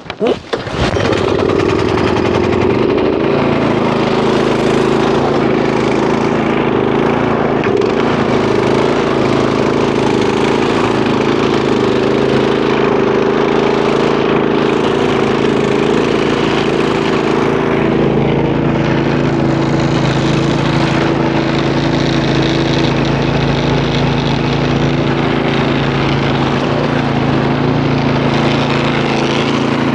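Small gasoline snowblower engine catching in the first second and settling into a steady, even run within a few seconds.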